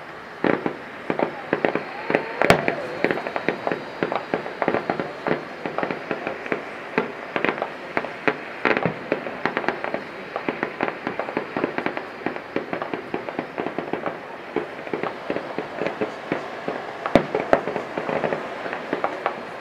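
Distant fireworks display: a rapid, irregular stream of bangs and crackling pops, several a second. A louder report comes about two and a half seconds in, and another comes near the end.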